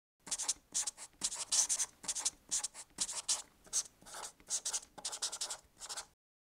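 Marker writing on a whiteboard: short scratchy pen strokes in quick succession, stopping shortly before the end.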